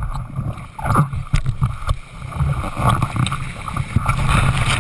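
Seawater sloshing and splashing against a camera held right at the ocean surface: a dense low rumble with scattered sharp splashes, growing louder toward the end.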